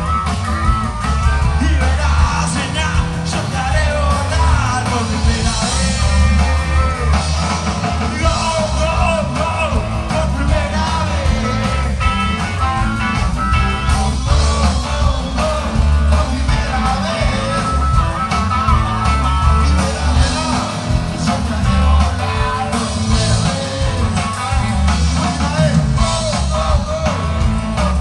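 Live rock band playing loudly, with electric guitar and a singer.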